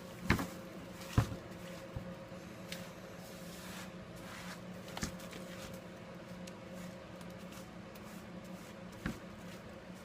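Scattered small clicks and taps of hand tools working on a smartphone's parts, the sharpest two in the first second or so, over a steady low hum.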